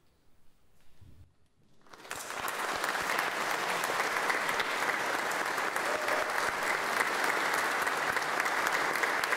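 Audience clapping at the end of a piece, starting about two seconds in after a near-silent pause, then steady, sustained applause.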